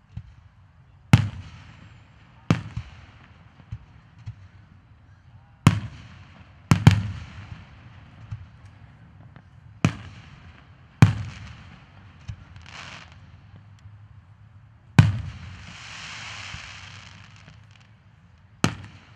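Aerial fireworks shells bursting overhead: about eight loud booms at uneven intervals, each trailing off in a rolling echo. One burst late on is followed by a longer hiss lasting a couple of seconds.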